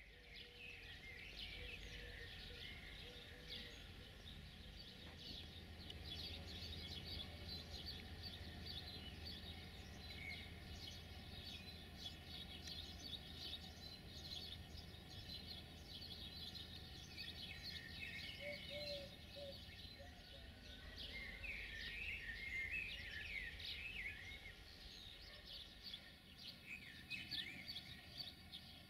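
Small birds chirping and singing, many quick short chirps, busiest in the second half, over a faint steady low rumble of outdoor background noise.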